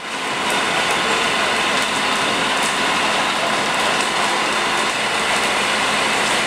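A burning caravan and the firefighting around it: a steady rushing hiss with faint scattered crackles, over the low hum of a fire engine running close by.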